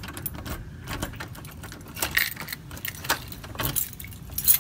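Irregular clicks and rattles from a front door's brass knob, latch and lock as it is worked and the door is pushed open.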